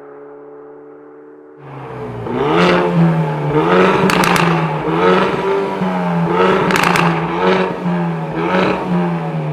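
Hyundai i30N's turbocharged four-cylinder engine through an aftermarket GRAIL exhaust, being revved repeatedly while standing: each rev rises and falls about once a second, starting about a second and a half in. Sharp exhaust pops and crackles come on the overrun, in clusters of quick cracks.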